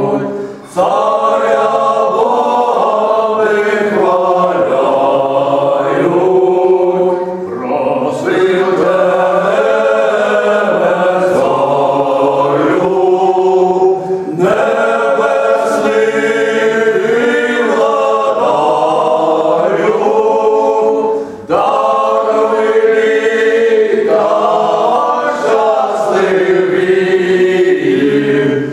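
Small male vocal ensemble singing a cappella in harmony. The singing comes in long held phrases, with brief breaks for breath about every seven seconds.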